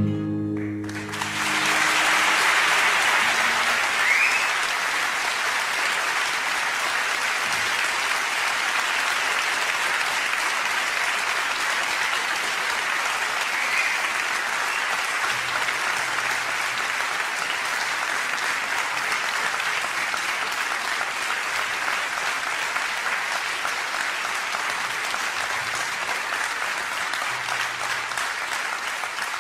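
Audience applauding steadily for a long stretch, starting as the last guitar notes of a song die away about a second in.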